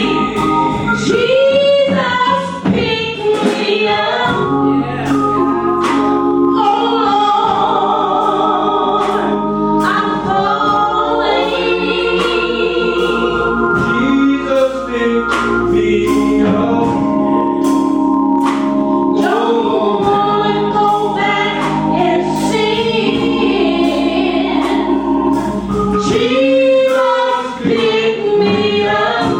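Gospel choir singing with organ accompaniment under held chords, and sharp percussive hits all through.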